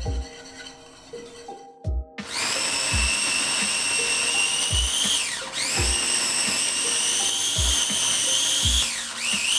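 Cuisinart mini food processor motor running with a high-pitched whine as it chops apple. It starts about two seconds in, cuts out briefly and restarts midway, then gives a few short pulses near the end. Background music with a steady beat plays underneath.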